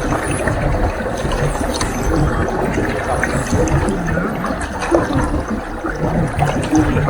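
Water churning and splashing steadily against a pedal boat as it is pedalled along.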